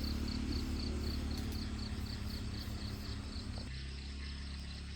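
Insects chirping in a regular high-pitched pulse, about four chirps a second, over a low steady rumble.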